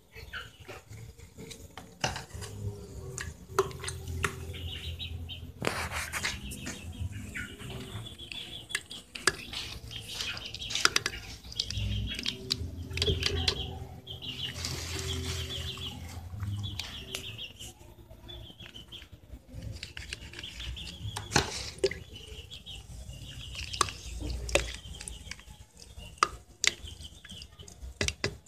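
Scattered clinks and knocks of a spoon and a plastic pitcher being handled, with short chirps of birds coming again and again in the background.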